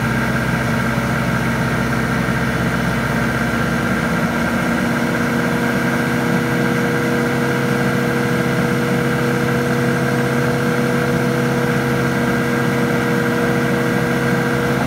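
Isuzu engine of a Heli 3.5t all-terrain forklift running steadily while it powers the hydraulic 360-degree rotator turning the forks.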